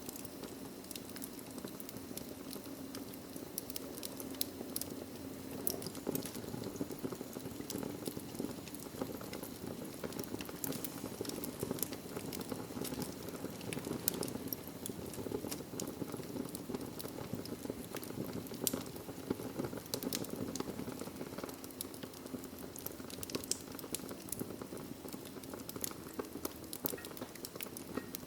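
Wood fire burning in a fireplace, with a steady low rush of flame under frequent small, sharp crackles and pops from the burning logs.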